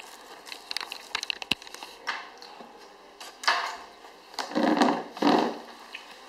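A person biting into and chewing a piece of fresh fruit with its skin on, with crisp crunching sounds. A few light clicks come in the first second and a half, a sudden bite about three and a half seconds in, and two louder crunches about a second later.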